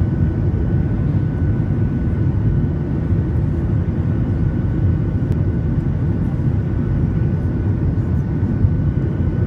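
Cabin noise inside a Boeing 737-700 on approach to land: a steady low rush of engine and airflow noise with a faint high whine from the CFM56 turbofans.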